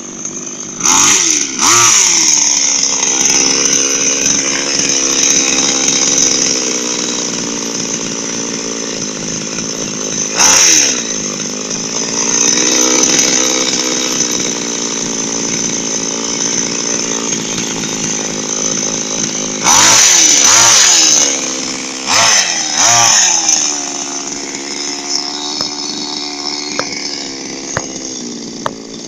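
Small two-stroke chainsaw engine mounted on a homemade RC car, idling steadily and revved up briefly several times, each rev falling back to idle; the longest rev comes about two-thirds of the way through.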